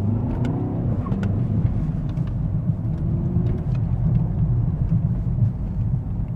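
Mercedes-AMG S63's twin-turbo V8 running under way with road rumble. Its note rises over about the first second, then settles into a steady low drone.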